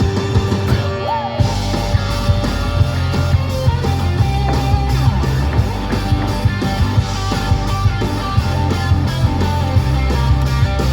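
Country song's instrumental passage: twangy guitar with bent notes over bass and a steady drum beat, the bass coming in about a second and a half in.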